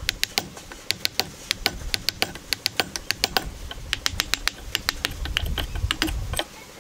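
A steel wood chisel cutting out a lap-joint notch in a timber beam: a rapid, uneven run of sharp clicks and taps, several a second, as the blade bites into the wood and pries out chips.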